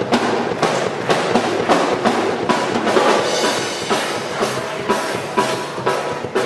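Live rock band playing, with the drum kit to the fore: bass drum and snare hits in a steady beat over bass and keyboard.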